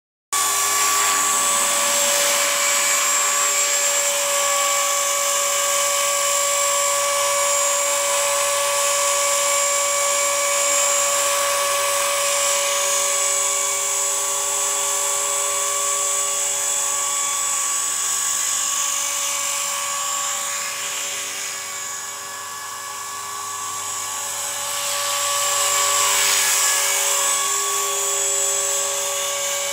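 EXI 450 SE electric RC helicopter (a T-Rex 450 clone) hovering: a steady high-pitched whine of motor, gears and rotor that cuts in abruptly just after the start. It dips in loudness about two-thirds of the way through and swells back a few seconds later.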